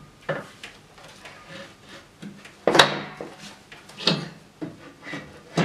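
Knocks and scrapes of a flat-pack desk's black board shelf unit being handled and fitted into its metal frame, about four knocks with the loudest near the middle.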